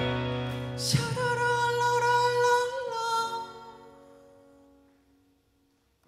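Live rock band with acoustic and electric guitars closing a passage: a last chord struck about a second in, a held sung note over it, and the chord ringing away to silence.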